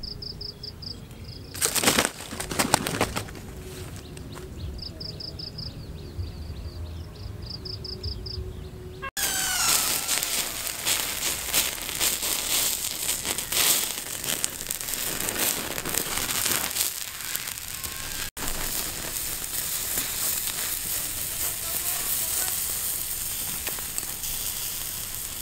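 A large bird caught in a snare flaps its wings hard for about a second, about two seconds in, while a high chirping trill repeats in short bursts. After a cut comes the steady crackling and sizzling of a wood fire under a whole bird roasting on a spit.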